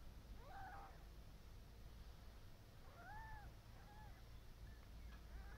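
Faint, short high-pitched cat mews, four separate calls each rising and falling in pitch, over a steady low hum.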